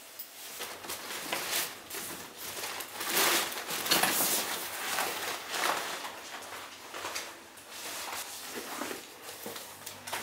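Fabric rustling in irregular bursts, with soft scuffs and knocks, as a coat and a backpack are handled and taken off.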